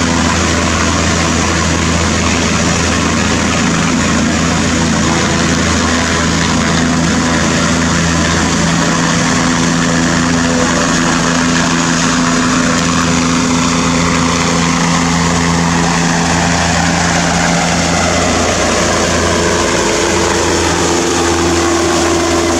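Bell 407 helicopter's turbine engine and rotor running loud and steady, with a low hum under a broad rushing whine. In the second half a whooshing tone sweeps downward in pitch.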